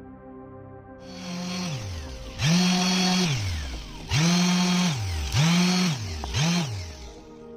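Handheld electric power tool switched on and off about four times: each time the motor spins up quickly to a steady whine, then winds down after release. Soft background music plays underneath.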